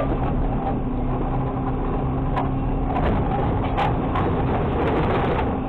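Diesel engine of an automated side-loader garbage truck running with a steady low drone and hum, heard from the hopper. A few sharp knocks and rattles sound through it, the loudest just under four seconds in.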